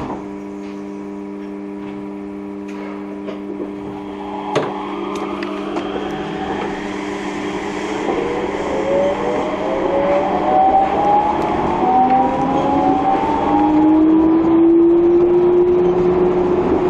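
Yurikamome rubber-tyred automated guideway train: a steady hum of several tones, then from about halfway a whine of several tones rising in pitch as the train pulls away and gathers speed, with running noise building beneath it. A single click sounds a little before halfway.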